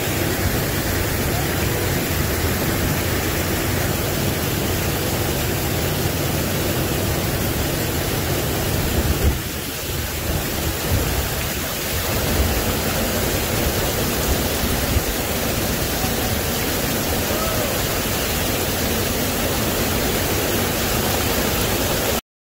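Small waterfall rushing steadily over rocks, a continuous even rush of water that dips briefly about ten seconds in and cuts off suddenly near the end.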